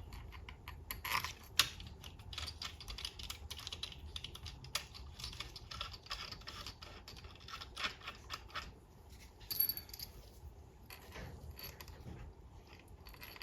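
Small steel valve-body bolts clicking and clinking as they are handled and tried in their bolt holes: a dense run of light metallic clicks, with one sharper click about a second and a half in.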